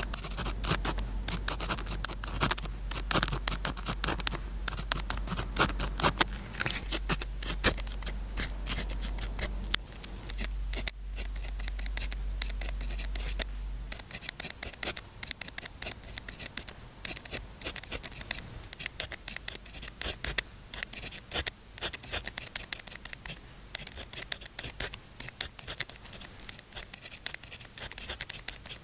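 Pen nib scratching across paper in quick handwriting strokes, with a steady low hum underneath that stops about halfway through.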